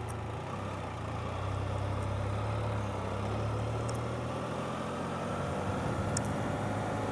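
Vehicle engine running steadily at low speed, a low hum that grows a little louder about a second and a half in.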